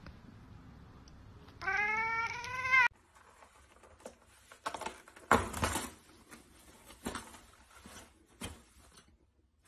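A cat gives one drawn-out meow lasting just over a second, its pitch rising at the end. It is followed by irregular rustling and crinkling of toilet paper as a cat claws it off the roll and down the wall, loudest about halfway through.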